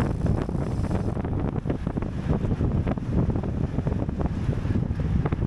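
Wind buffeting the microphone of a camera riding on a racing bicycle at speed: a steady low rumble with many quick gusty flickers.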